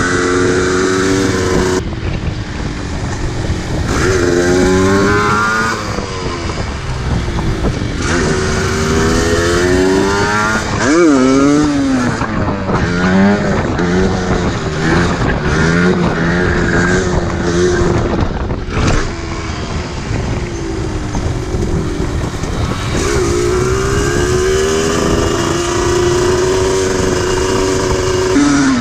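Yamaha DT 125 two-stroke single-cylinder engine revving hard under riding, its pitch climbing and falling again and again as the throttle opens and closes through gear changes.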